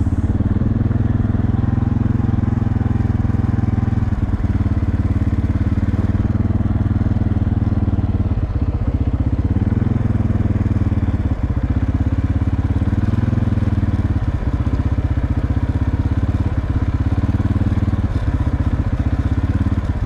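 A machine running with a steady low drone that holds the same level and pitch throughout.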